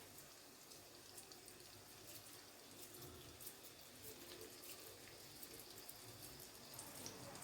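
Near silence: a faint steady hiss with a few small soft clicks.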